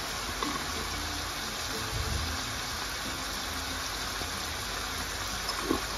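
Vegetables and liquid simmering and sizzling in a cast-iron pan, a steady hiss over a low steady hum.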